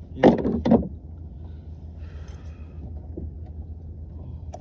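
Two quick, loud knocks about half a second apart on a fishing kayak, then a steady low rumble with a faint splash-like hiss.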